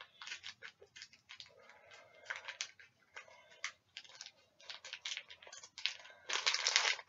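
Toy packaging being handled and opened: a run of small crinkles and clicks, growing into a louder, denser crinkling near the end.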